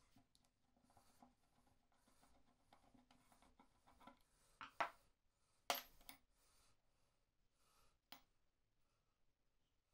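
Screwdriver working a rusty screw on the cast-iron crank wheel of an old breast drill: faint rasping, scraping strokes, then a few sharp metal clicks about midway, the loudest about six seconds in.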